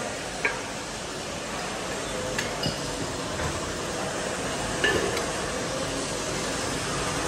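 A few light metallic clinks and taps, scattered and irregular, over a steady background noise.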